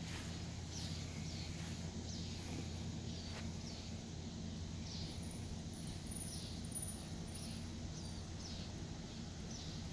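A bird calling over and over with short, high, downward-sliding notes, roughly one a second, over a steady low hum.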